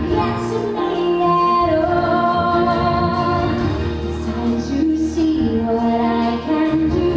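A female voice singing held notes over instrumental backing.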